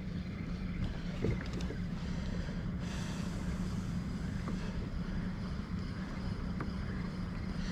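Steady wind buffeting the microphone, with water moving around a kayak on open sea.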